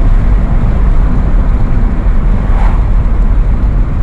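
Steady low rumble of road and wind noise inside a car driving at road speed.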